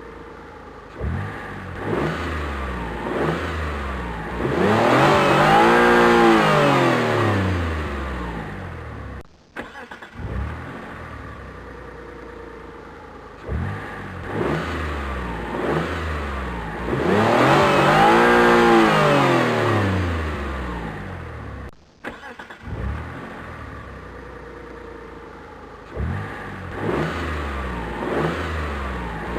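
Car engine starting and revving: a few short blips of the throttle, then one long rev that climbs and falls back. The sequence plays three times with a brief gap between rounds.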